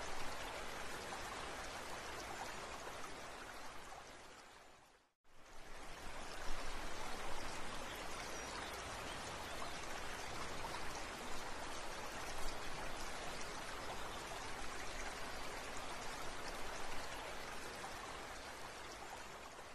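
Steady rush of running, trickling water. It fades out about four seconds in, stops for a moment, and comes straight back.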